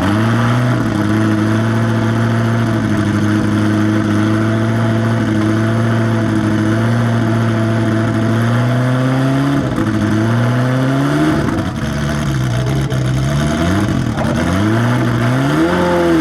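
Ferrari F40 LM's twin-turbo V8 running at a steady held note for about the first nine seconds, then blipped several times, the revs rising and falling quickly, with a quick run of blips near the end.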